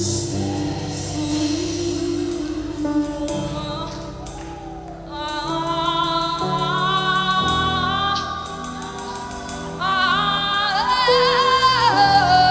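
Gospel worship music: instrumental backing holding chords, with a voice singing long held notes that swell from about halfway through.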